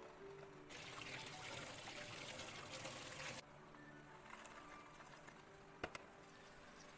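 Background music. From about one second in to three and a half seconds, a rushing noise plays over it and is louder than the music. A single sharp click comes near the end.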